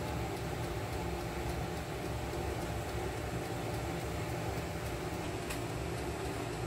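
Countertop electric oven running with a steady hum while fish grill inside.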